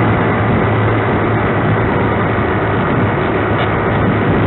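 Scale RC model warplane in flight, its motor and propeller giving a steady drone with wind rush, heard dull and narrow through the onboard camera's microphone.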